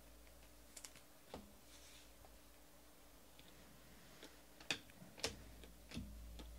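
Faint scattered clicks and light rustles as a foil trading-card pack is opened and the stiff cards are flipped through by hand, the sharpest clicks coming near the middle and later on.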